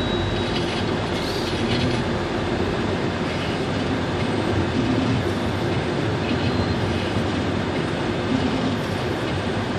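Steady road noise inside a Ford Focus's cabin as it drives along a dirt-and-gravel road: tyres rumbling on the rough surface over the engine's hum.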